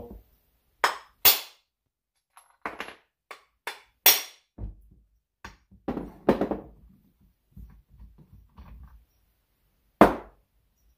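Hammer striking a knocker threaded onto the crankshaft end of a Stihl MS210 chainsaw engine, shocking the flywheel loose from its taper: a series of sharp, irregularly spaced metal knocks, the loudest near the end.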